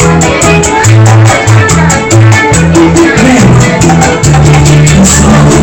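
Loud dance music played over a DJ sound system, with a fast, steady percussion beat and a bass line.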